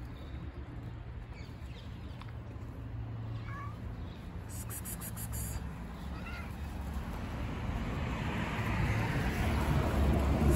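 A stray cat meows twice, short calls about three seconds apart, over a steady low hum. Near the end a rustling, handling noise grows louder as the phone is swung about.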